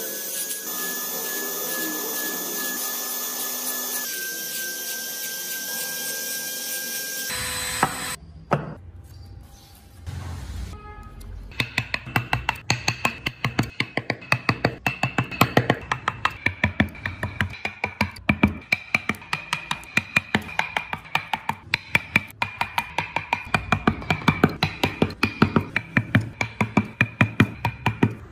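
A steady, high-pitched machine whine for the first several seconds, then a chisel cutting into a wooden wheel in rapid, even strikes, about four a second, each with a short metallic ring.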